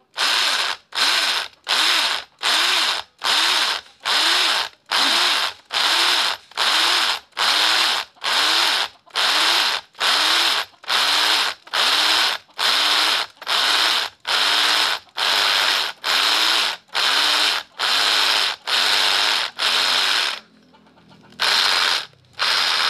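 SDS-plus hammer drill with a concrete core hole saw cutting into a concrete block, run in short trigger pulses about once every three-quarters of a second, the motor winding up and down with each pulse. A short pause comes near the end, then a few more pulses.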